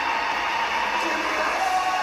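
Hockey goal celebration audio: arena crowd noise and goal music, with a steady held tone near the pitch of a goal horn.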